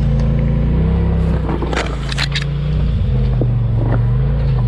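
Off-road vehicle's engine running at low revs, the pitch stepping up and down as the throttle changes, with a few brief knocks and scrapes about two seconds in.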